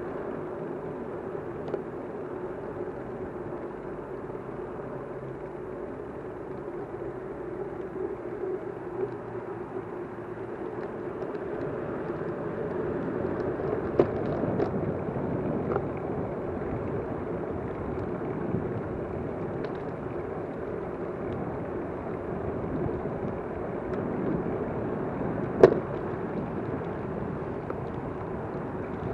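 Steady rumbling drone of a vehicle on the move, with a sharp click about halfway through and another near the end.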